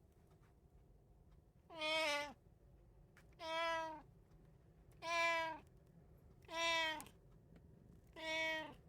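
Domestic cat meowing five times, evenly spaced about a second and a half apart. Each meow is a short, clear call of about half a second.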